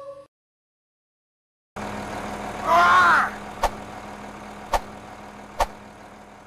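A steady low hum with hiss cuts in about two seconds in. Over it, a cartoon chicken gives a short, strangled squawk as it is choked by the neck. Three sharp cracks follow, about a second apart.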